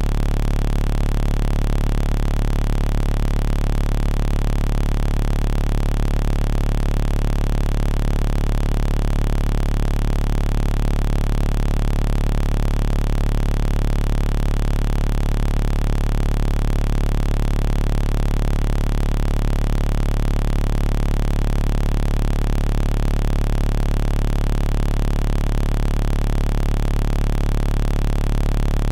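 A steady, unchanging electronic drone with a strong low hum and several held tones, constant in pitch and loudness throughout.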